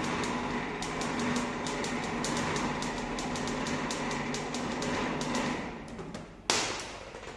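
Handwheel-driven tilting mechanism of a coefficient-of-friction apparatus being cranked, grinding with rapid, irregular clicks as the tabletop is raised; the cranking stops and, about six and a half seconds in, a single sharp knock comes as the hard-shelled wood apple rolls down the inclined stainless steel sheet.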